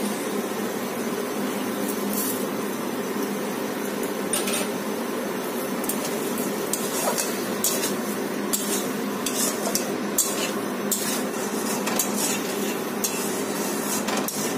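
Metal spatula scraping and clinking against a metal kadai while cooked green-mango pieces are stirred. The clinks come thick and fast in the second half, over a steady hiss.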